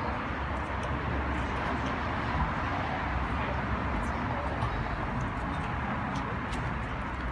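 Steady outdoor background noise with a strong low rumble and a few faint clicks scattered through it.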